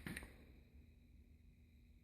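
Near silence: room tone, with one faint short click just at the start.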